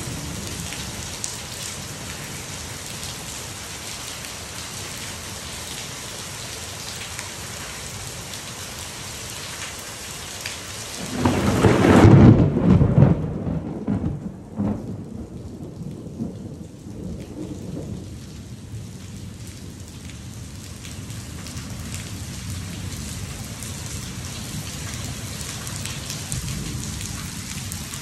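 Heavy rain falling steadily on a pool and its concrete deck. About eleven seconds in, a loud clap of thunder rumbles and dies away over several seconds while the rain keeps falling.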